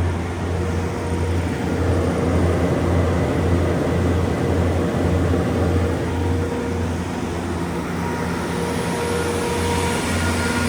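MTU 12V1600G80S V12 diesel engine of a 600 kW standby generator set running steadily.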